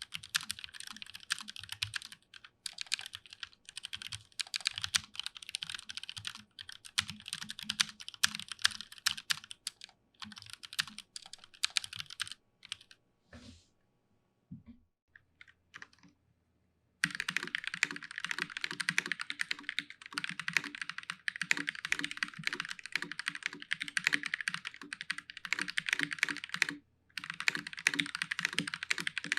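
Fast typing on mechanical keyboards with linear red switches: first a Tecware Phantom TKL low-profile board with Outemu Red switches, then, after a pause of about three seconds halfway through, an MKL870 with Akko CS Rose Red switches, whose keystrokes sound brighter.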